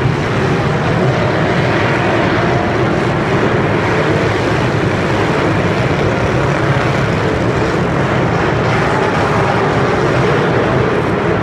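Engines of many demolition derby cars running and revving together in a steady, dense din inside a covered stadium, their pitch wavering up and down.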